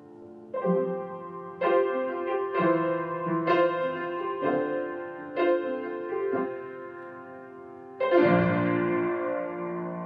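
Piano playing a slow film score: chords struck about once a second, each dying away, then a louder chord near the end left to ring.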